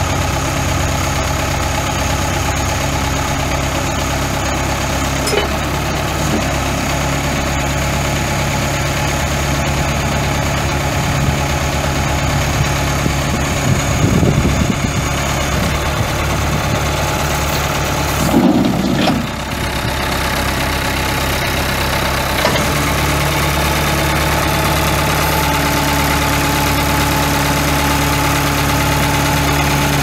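The four-cylinder turbo diesel of a 1986 John Deere 410C backhoe running steadily near idle. Its note shifts up and down a few times, with a couple of brief louder noises around the middle.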